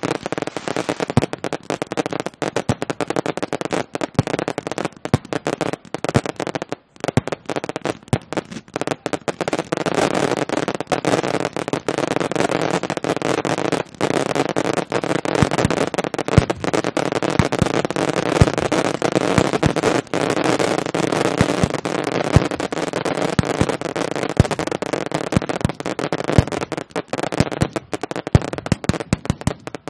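Fireworks display: aerial shells and low-level comets fired in quick succession. Their bursts and crackling stars run together into a dense, continuous crackle, with many sharp bangs throughout.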